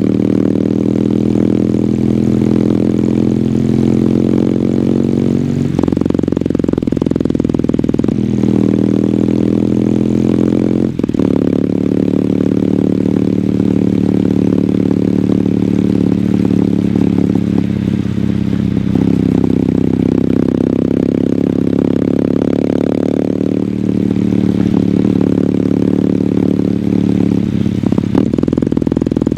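2022 Kawasaki W800's air-cooled parallel-twin engine running through its stock exhaust while ridden. The engine note climbs as it accelerates, breaks off sharply at a gear change about eleven seconds in, then holds near a steady cruise with a few smaller changes in engine speed.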